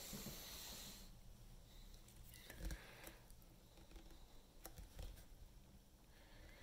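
Near silence: room tone in a small room, with a few faint soft knocks, the clearest about two and a half seconds in.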